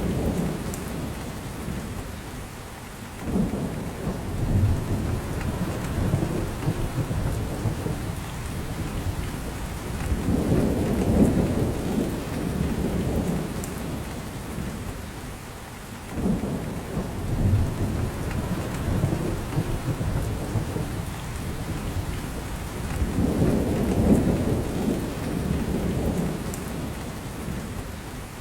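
Steady rain falling on spruce forest, with drops dripping from the branches, under a deep rumble that swells and fades about every six seconds.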